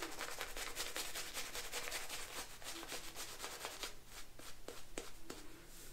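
Boar-bristle shaving brush (Semogue 610) swirling shaving-soap lather: rapid, scratchy rubbing of the bristles.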